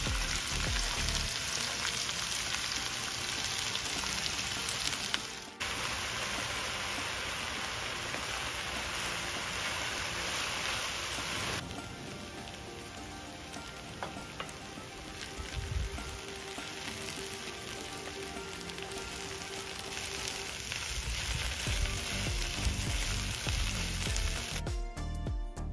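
Food sizzling as it fries in a hot pan, with stirring, a steady hiss that changes abruptly about five seconds in and again near twelve seconds.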